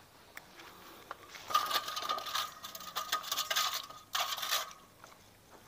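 Metal parts and tools clinking and scraping as they are handled, with a faint metallic ring under a busy stretch from about a second and a half in, then a second short clatter a little later.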